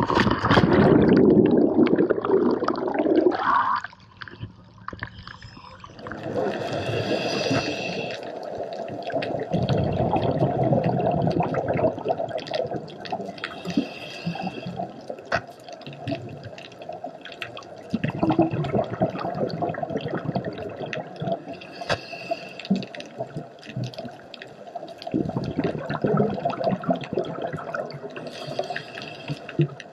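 A loud splash as a scuba diver enters the sea from the boat. After that, heard underwater, his breathing through a scuba regulator: a steady gurgle with bursts of bubbling and hissing every six to eight seconds.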